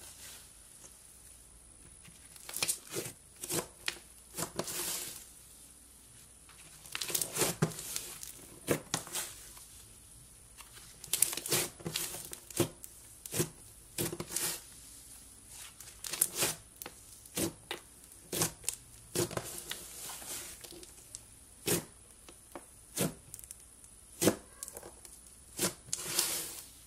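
Thick slime being pressed, stretched and poked by hand, giving irregular clusters of sticky crackles and pops with short quiet gaps between.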